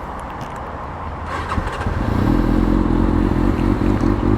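Kawasaki ZX6R's inline-four motorcycle engine running, getting clearly louder from about a second and a half in.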